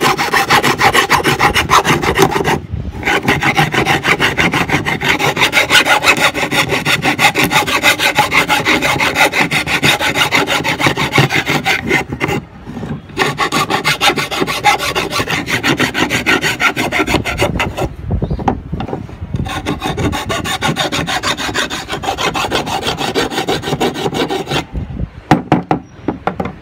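Flat metal hand file rasping back and forth over the cut edges of a bamboo tube in quick, repeated strokes, with a few short pauses, smoothing the edges to a finish. The filing stops near the end and a few knocks follow.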